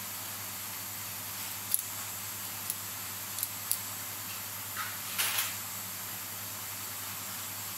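Watchmaker's steel tweezers and small tools clicking lightly against a watch movement and its holder: a few small sharp clicks in the first half, then a brief rustle of handling a little past the middle, over a steady background hiss.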